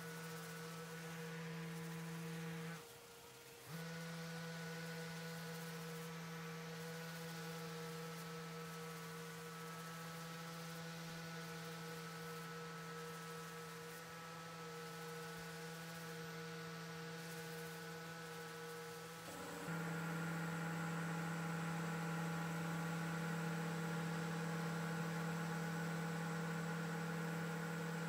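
Festool random orbital sander with a foam pad running steadily on a cured epoxy tabletop, a constant motor hum. It drops out briefly about three seconds in and is louder from about two-thirds of the way through.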